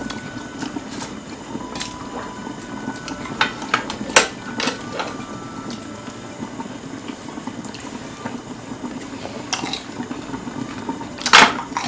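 Kimchi stew bubbling steadily in a lidded pot on a portable gas burner, with chopsticks clicking against the takeout tray and dishes now and then, the loudest clack near the end.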